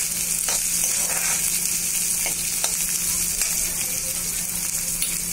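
Green peas, onion and green chillies sizzling in hot oil in a metal kadhai, with a spatula scraping and tapping against the pan a few times as the mixture is stirred.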